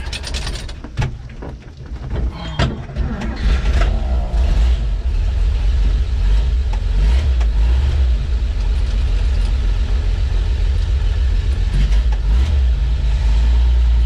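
1956 Dodge Power Wagon's flathead 230 cubic-inch six-cylinder engine running, heard inside the cab. A few sharp knocks come in the first three seconds while the floor gearshift is worked, then the low engine drone grows louder and holds steady as the truck gets under way.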